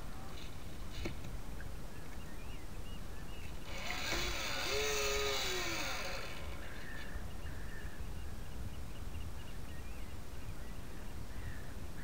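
Steady low rumble of wind and water against a model sailboat's onboard camera as it sails. About four seconds in, a louder rushing lasts roughly two seconds, with a brief wavering whine in it.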